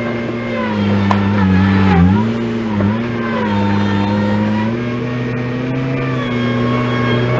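Engine of a machine moving dirt, running at a steady speed. Its pitch dips briefly about two seconds in and again near three seconds, as if pulled down under load, then settles slightly higher.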